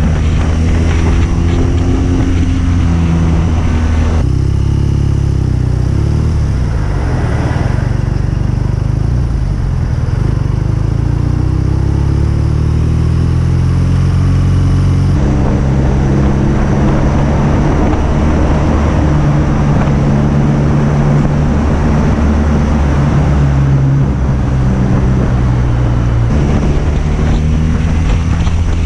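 BMW R nineT's 1170 cc boxer twin exhaust while riding, the engine note changing through the first few seconds. It settles into a lower, steady run, then picks up again about halfway through and holds.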